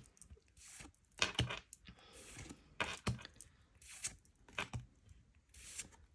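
Pokémon trading cards and their foil booster-pack wrappers being handled: irregular light taps, slides and short rustles.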